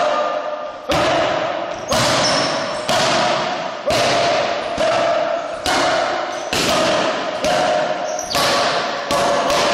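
Boxing gloves hitting focus mitts, a sharp smack about once a second, a dozen or so in all, each followed by a long echo in a large hall.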